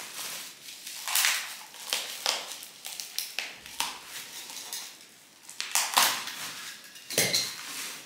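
Packaging rustling and crinkling in a run of short bursts as an item is unwrapped by hand.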